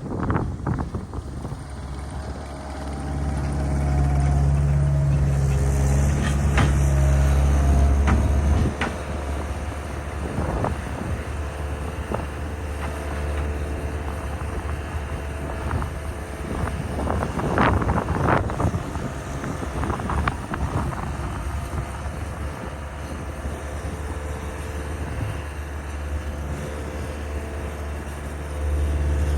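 Skid steer engine running, louder and working harder for a few seconds near the start, then settling back, with scattered clanks and rattles throughout.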